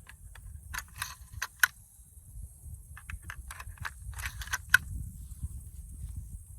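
Brass 12-gauge shells clicking and clinking as they are loaded by hand into the magazine of a Winchester 1887 lever-action shotgun: a scattered run of small metallic clicks, two sharper ones about a second and a half in and near five seconds.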